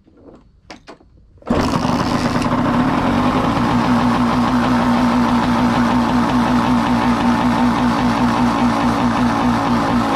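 Honda CR80 two-stroke single-cylinder engine kick-started: a few light knocks, then about a second and a half in it catches and runs steadily at a loud idle, running only on the fuel left in the carburettor bowl.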